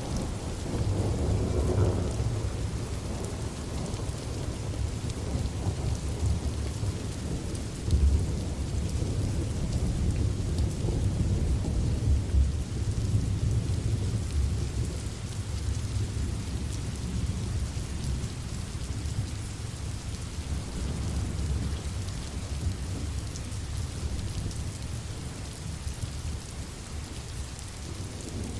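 Steady rain falling, with low rolling thunder rumbling underneath that swells several times, most strongly about 2, 8 and 12 seconds in.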